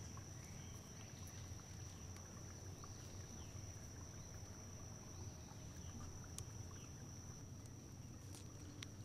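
Quiet outdoor background: a steady low hum and a thin steady high-pitched tone, with faint short chirps and a few light clicks, two of them near the end.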